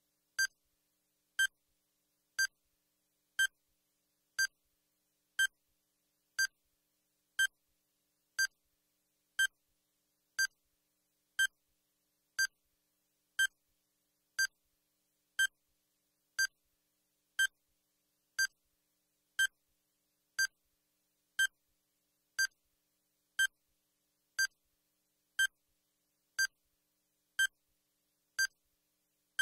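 Countdown timer sound effect: a short electronic beep once a second, evenly spaced, marking off the seconds of a one-minute countdown.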